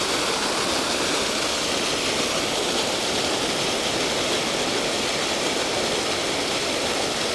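Steady rushing of water pouring out of a sewage-plant spillway outfall into a creek, an even unbroken roar of white water.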